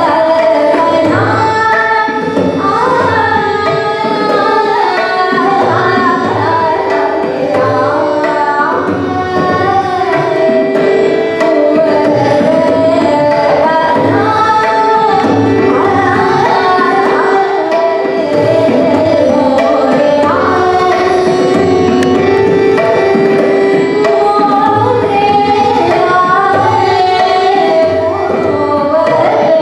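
Hindustani classical vocal music: a woman singing ornamented, gliding melodic phrases with tabla accompaniment keeping a steady rhythm, over a sustained drone of held notes.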